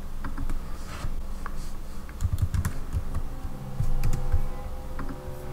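Keystrokes on a computer keyboard: irregular clicks of someone typing a terminal command, in a quick cluster a couple of seconds in and again about four seconds in, over a steady low hum.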